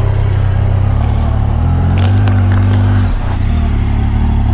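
Motorcycle engine running at idle close by, its pitch lifting slightly for a second or so in the middle.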